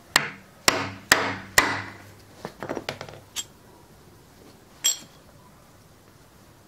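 Hammer striking a steel setting tool four times in quick succession, each blow ringing briefly, driving the expander plug into a zinc-plated drop-in anchor so that it expands in the concrete hole. Lighter metal clinks follow as the tool is pulled out and handled, with one sharp ringing clink about five seconds in.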